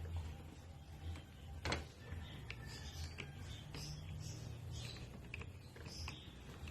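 Faint clicks and taps of small metal parts and tools as a Kärcher K4 pressure washer's pump housing is fitted back together and its screws put in, with one sharper knock a little under two seconds in, over a low steady hum.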